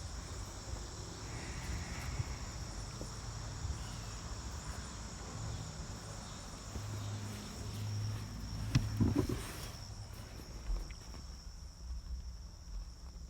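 Insects chirping steadily in the background, with low handling rumble and a sharp knock about nine seconds in.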